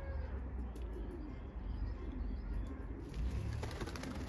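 Domestic pigeons cooing softly over a low background rumble, with a rush of noise coming up near the end.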